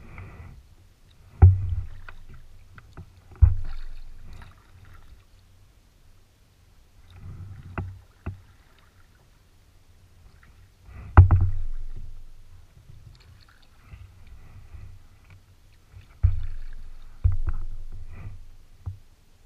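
Kayak being paddled: the paddle knocks sharply against the kayak's hull about six times at uneven intervals. Between the knocks, softer splashing and dripping of the paddle blades can be heard.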